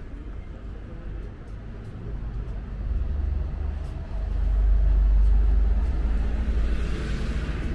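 Outdoor city street ambience with a loud low rumble that swells about four seconds in, and a hiss rising near the end.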